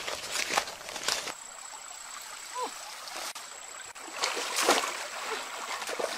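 Shallow stream running over stones, with a louder splash of water a little past the middle as a woven bamboo fish trap is pushed into the current. A few quick knocks and rustles come in the first second.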